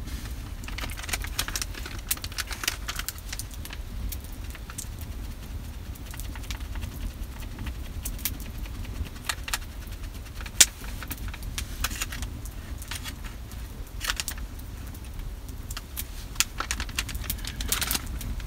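Open wood fire crackling and popping over a steady low rumble, with one sharp loud pop about ten seconds in. A knife shaves a hardwood fork blank in short scraping strokes, in clusters near the start and again near the end.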